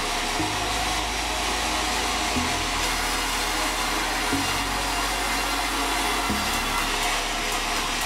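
Sawmill saw running steadily, a continuous machine whoosh of motor and blade as boards are worked through. Background music sits underneath, its low chords changing about every two seconds.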